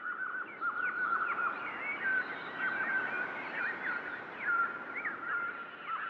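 A flock of small birds chirping and twittering, many short calls overlapping.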